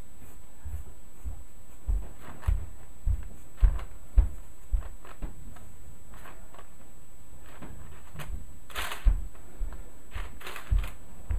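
Pencil working on paper over a drawing board: soft, irregular knocks and faint short scratches as small marks are made. A brief, louder rustle of paper comes about nine seconds in.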